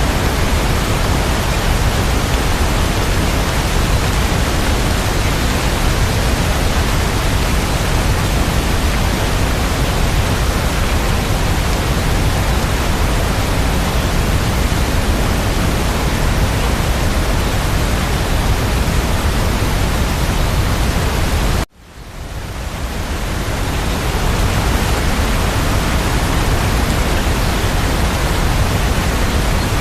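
Steady rain sound, an even, dense hiss. About two-thirds of the way through it cuts out abruptly and fades back in over a couple of seconds, like a loop seam.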